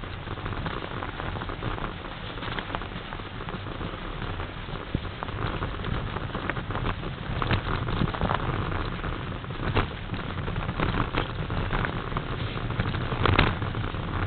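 Mountain bike riding over a snowy woodland trail: a steady crackling rush of tyres on snow and leaf litter, with the bike knocking and rattling over bumps a few times, loudest near the end.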